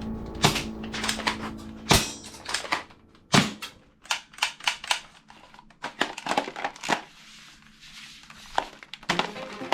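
A run of sharp plastic clicks and knocks from a toy gun being handled and worked, some in quick clusters, with quieter gaps between.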